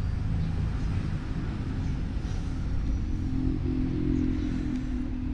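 Isuzu 4HK1 four-cylinder turbo-diesel engine running with a steady low rumble. A hum in its sound grows stronger for a couple of seconds midway.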